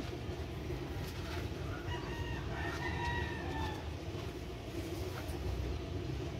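A rooster crowing once, a call of about two seconds starting near two seconds in, over a steady low rumble.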